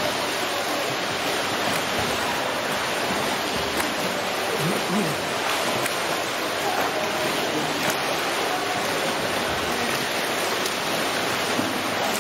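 Swimmers' arm strokes and kicks splashing in a pool, a steady wash of churning water noise.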